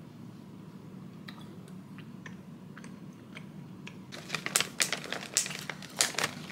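Faint mouth clicks from chewing, then from about four seconds in a snack bag's wrapper crinkling loudly in short bursts as it is handled.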